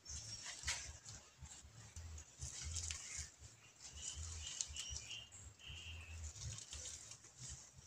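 Monitor lizard pushing its snout through dry leaf litter and debris while foraging: a stream of irregular rustles and crackles, with a low rumble underneath.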